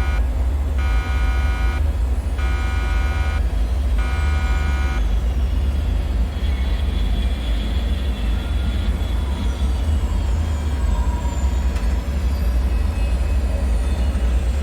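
Deep steady rumble of a bunker ambience, with a buzzing alarm sounding in pulses about once every second and a half that stops about five seconds in. After it, faint high whistling tones slowly fall in pitch over the rumble.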